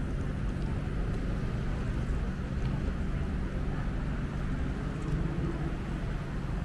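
Steady low rumble of city traffic outdoors, briefly a little louder about five seconds in.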